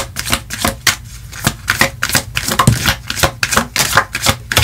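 A deck of tarot cards being shuffled by hand: a quick, irregular run of crisp card clicks and flicks.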